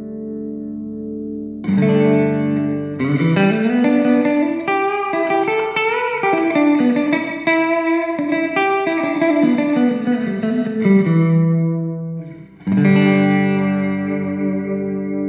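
Electric guitar played through an Orange Crush 35 LDX combo amp: ringing chords, then a flowing run of single notes, then more strummed chords near the end.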